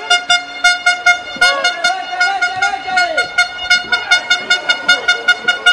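A horn sounded in rapid repeated toots, about five a second, one steady pitch throughout, with some shouting underneath.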